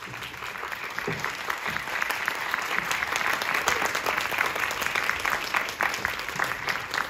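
Theatre audience applauding, the clapping swelling over the first couple of seconds and then holding steady.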